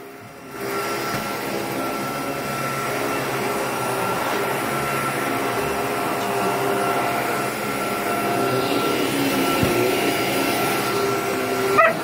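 Upright vacuum cleaner running: a steady motor drone with a constant high whine.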